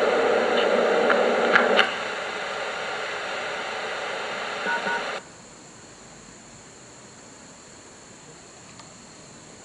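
Static hiss from an FM community-broadcast receiver coming through a TOA outdoor loudspeaker as the broadcast ends. It steps down in level with a couple of clicks about two seconds in, then two short electronic beeps sound about five seconds in and the loudspeaker cuts off suddenly, leaving faint background.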